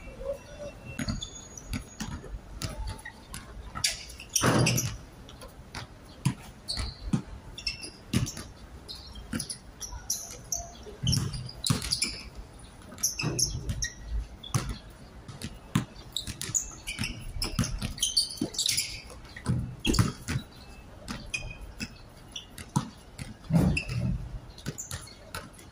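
Basketball bouncing on a hard court amid players' running footsteps, with short high squeaks of sneakers on the court surface now and then.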